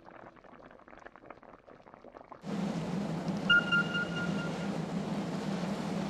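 Thick red sauce simmering, with faint quick pops of bursting bubbles. About two and a half seconds in, this gives way abruptly to the steady low drone and rushing water of a ship under way, with a brief high tone in the middle.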